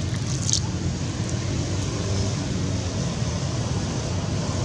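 Steady low rumbling background noise, with a brief high chirp or squeak about half a second in.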